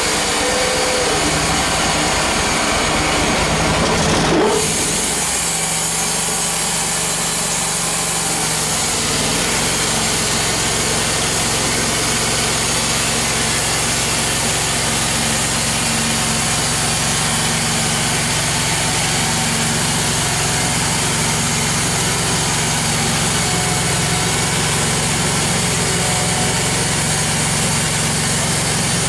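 Band sawmill running with its engine at a steady speed. There is a brief louder moment about four seconds in, after which the engine note holds steady for the rest of the time.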